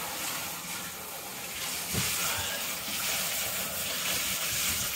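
Handheld shower head spraying water onto a Malamute's wet coat in a bathtub: a steady hiss of running water, a little stronger after a brief thump about two seconds in.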